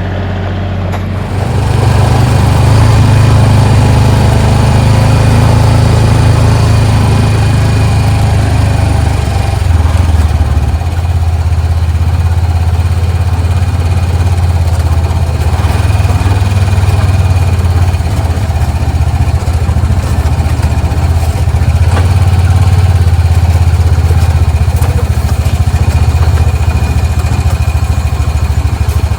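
Kubota L3301 tractor's three-cylinder diesel engine running steadily, its sound stepping up a little about a second and a half in.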